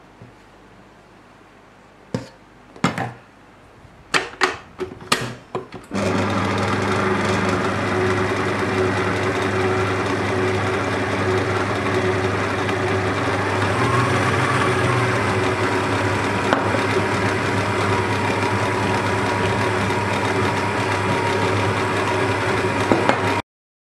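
A few knocks and clatters, then about six seconds in a stand mixer's electric motor starts and runs steadily with a steady hum, its dough hook churning flour and moringa leaves into bread dough. The hum stops abruptly just before the end.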